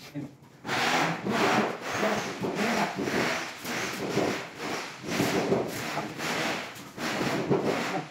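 Rhythmic rasping strokes, about two a second, starting a moment in: a rough back-and-forth scraping like hand sawing or rubbing.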